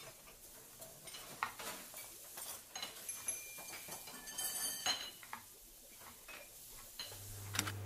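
Scattered light clinks and clatter of dishes and cutlery, with a denser run of bright clinks about halfway through. A low, steady music bass comes in near the end.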